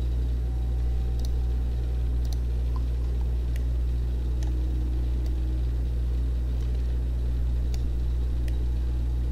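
Steady low electrical hum and hiss of a desk microphone's background noise, with a few faint computer-mouse clicks.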